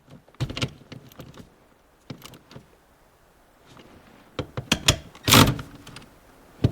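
Scattered clicks and knocks of plastic and metal parts being handled and fitted back together while a car's gear shifter assembly is reassembled, with a cluster of louder knocks near the end.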